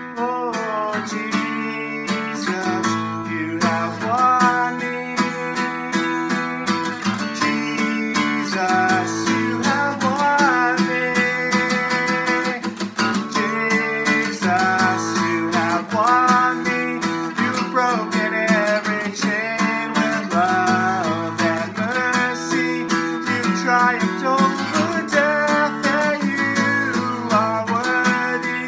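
A man singing a worship song, accompanying himself on a strummed acoustic guitar.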